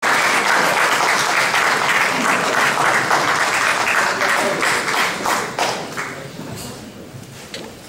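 Audience applauding: dense clapping that thins out after about five seconds and dies away near the end.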